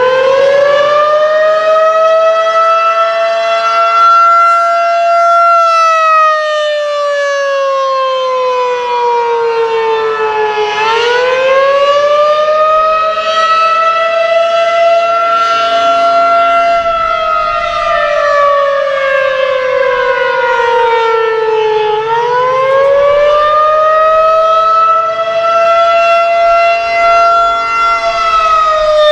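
Federal Signal 2001-SRN electromechanical outdoor warning siren sounding the Attack signal: a loud wail that rises, holds, then slides back down, repeating about every eleven seconds.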